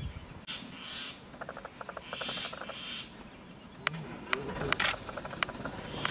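Birds chattering in rapid clicking trills, several short runs in a row, with a few sharp separate clicks in the second half.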